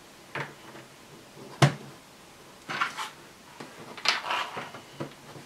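Plastic LEGO masonry profile bricks being handled and pressed onto a LEGO floor plate: a series of short light clicks and clatters, the sharpest about a second and a half in, with a brief rattle of plastic near the end.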